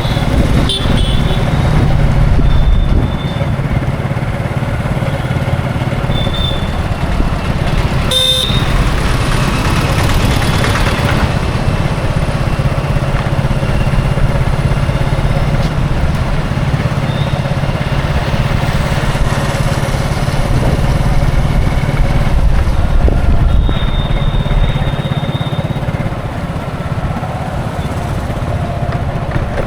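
Busy Indian road traffic: vehicle engines running and passing in a steady din, with short horn toots several times. The loudest toot is about eight seconds in, and a longer honk comes near the end.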